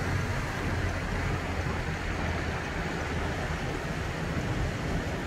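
Steady road noise heard from inside a moving car: a low rumble of engine and tyres with a broad hiss over it.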